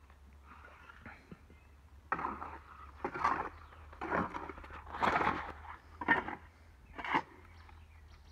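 Metal tools scraping through wet concrete, six short scrapes about a second apart.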